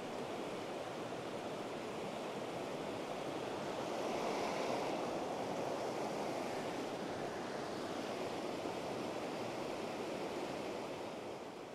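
Fast-flowing river water rushing over rocky shallows: a steady rush that grows a little louder about four seconds in.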